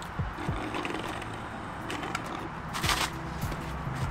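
Drinking from a fountain-drink cup through a plastic straw, with a short slurp about three seconds in and a few small mouth clicks, over a low steady hum.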